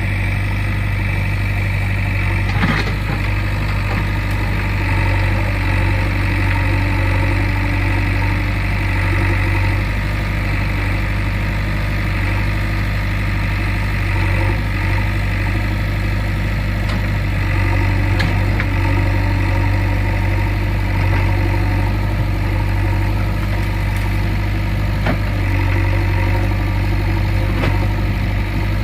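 Diesel engine of a JCB 3DX backhoe loader running steadily at a low, even speed, with a few light knocks over the steady drone.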